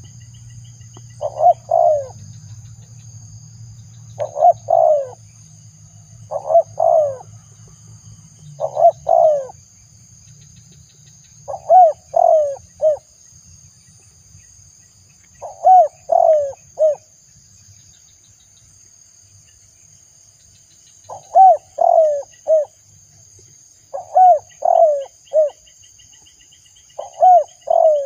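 Spotted dove cooing: short phrases of two to four low coos, repeated every two to four seconds, with a longer pause a little past the middle.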